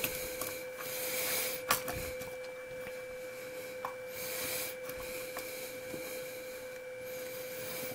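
A hard plastic chassis brace is handled and shifted against an RC car's chassis, making soft scuffing and rubbing with a few light clicks. A steady faint hum runs underneath.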